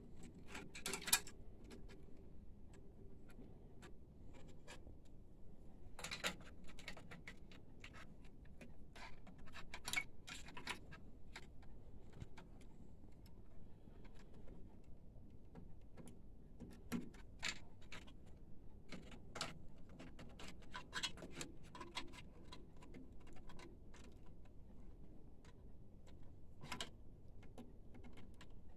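Scattered, irregular sharp clicks and light taps of printer cables and their plastic connectors being handled and plugged back into the printer's electronics.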